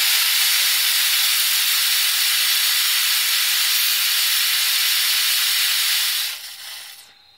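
Brass spray nozzle hissing steadily as it jets a fine mist upward under pressure, then tapering off and stopping about six to seven seconds in.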